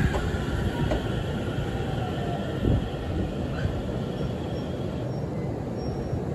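JR Central Series 313-3000 electric train rolling slowly past: steady low rumble of wheels on rail with a couple of light knocks, and a faint whine that fades out about five seconds in.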